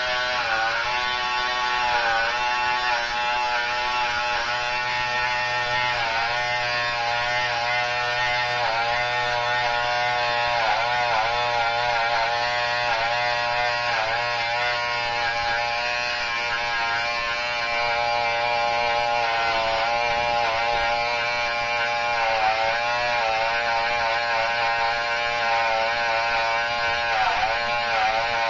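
Corded electric hair trimmer buzzing steadily as it cuts into short hair at the side of the head, its pitch dipping briefly again and again.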